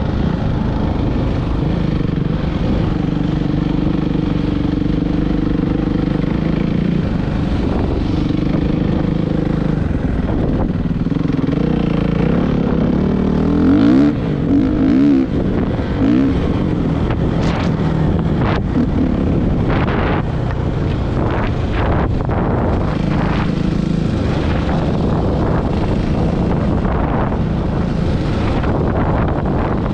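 Suzuki RM-Z450 dirt bike's single-cylinder four-stroke engine running on the trail. It revs up to its loudest about halfway through, and a run of sharp knocks follows a few seconds later.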